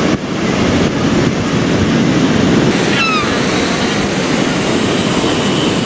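Sharkan quadcopter fishing drone flying in low, its propellers buzzing over a steady rush of wind and surf. A steady high whine comes in about halfway through, and a brief falling chirp sounds about three seconds in.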